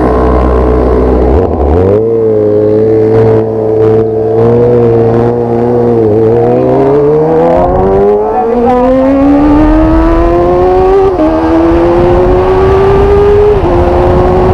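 Motorcycle engine under way: it holds a steady pitch for a few seconds, then accelerates with rising revs, drops sharply with an upshift about eleven seconds in, climbs again and shifts up once more near the end.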